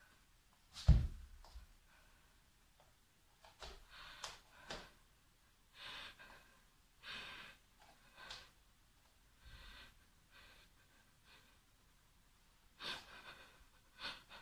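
A woman breathing in short, breathy gasps and sighs, with pauses between them. A single thump about a second in is the loudest sound.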